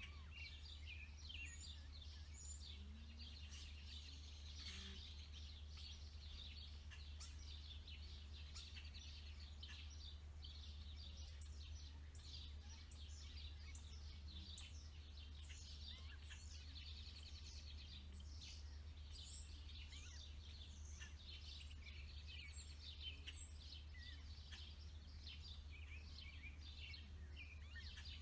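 Faint outdoor chorus of small birds, with many short high chirps and rapid trills overlapping continuously, over a steady low rumble.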